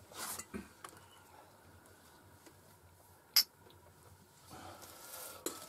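Quiet room with faint rustling of people eating at a table, and one sharp clink of tableware about three and a half seconds in.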